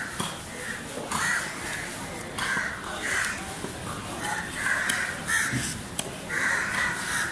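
Crows cawing over and over, harsh calls each lasting under a second, with a few sharp knocks of a knife against a wooden chopping block.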